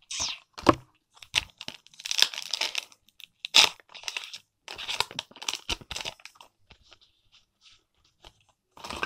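Foil Pokémon booster pack wrapper crinkling and tearing open in a run of sharp crackles, fading to faint rustles in the last few seconds.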